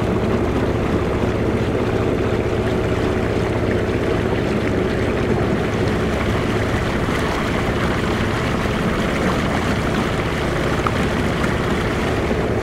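Boat's outboard motor running at a steady, unchanging pitch, with water and wind noise around it.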